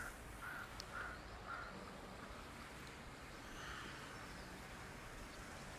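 A crow cawing in a quick series, about two short caws a second, that stops about a second and a half in, leaving faint outdoor background.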